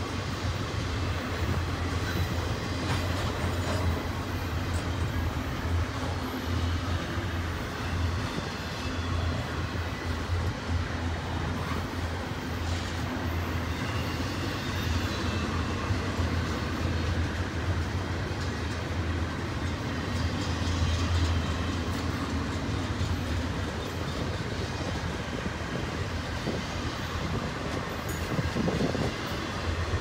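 Double-stack intermodal container train passing at track speed: a steady rolling noise of the well cars' wheels on the rails.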